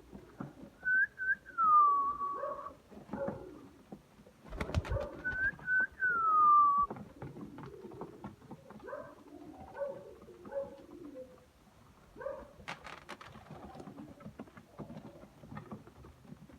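Domestic pigeons cooing, with two loud whistled notes that slide downward, about a second in and again about five seconds in. A thump comes about four and a half seconds in and a sharp click near the thirteen-second mark.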